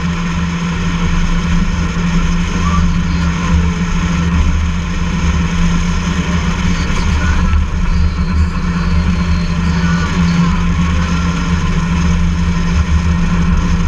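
Outboard jet motor on a jet sled running steadily under way, a constant low drone with no change in speed.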